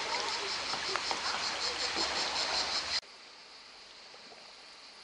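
Fast river current rushing along the bank, with an insect chirping in a fast, even pulse above it. About three seconds in, this cuts off abruptly to a faint, steady hiss.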